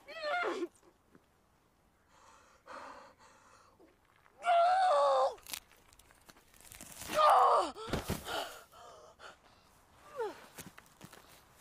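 A woman's pained cries and gasps as she works a spike out of her wounded foot. There are four strained cries, each sliding down in pitch, with the loudest and longest, about a second of wavering wail, near the middle. Short panting breaths fall between the cries.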